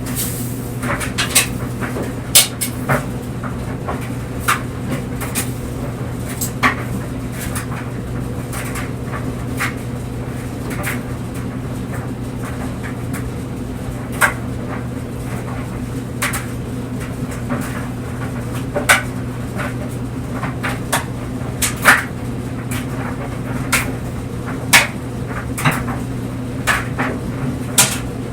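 Clothes dryer running with clothes tumbling in the drum: a steady motor hum under irregular light clicks and knocks, about one or two a second.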